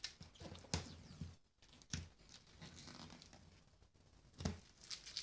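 Faint, irregular scraping and crackling as an old coating, softened by a heat gun, is worked off a boat hull, with a few louder scrapes about a second in and near the end.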